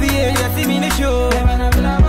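Music with a steady beat: deep bass, regular drum hits and a melody over them.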